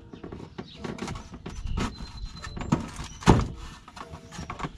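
A subwoofer enclosure is slid and bumped into place on the floor of a UTV, giving a series of knocks, scrapes and thunks, the loudest about three seconds in. Speaker wires are handled at the same time.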